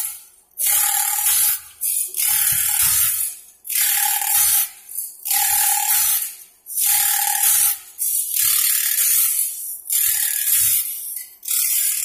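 Automatic band saw blade sharpener, its abrasive grinding wheel grinding the saw teeth one at a time. A harsh grinding hiss comes in regular strokes about every one and a half seconds, with low mechanical knocks between strokes as the feed pawl moves the blade on by one tooth.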